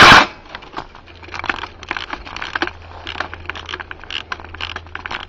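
A rapid full-auto burst from a JG 614 electric airsoft gun cuts off just after the start. Faint, irregular crackling and clicking follow over a steady low hum.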